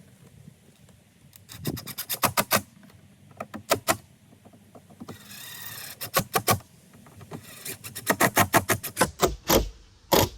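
Screws being driven back into a boat's jump seat brackets by hand tool: several bursts of quick, sharp clicks, with a short scraping stretch midway and two heavier knocks near the end.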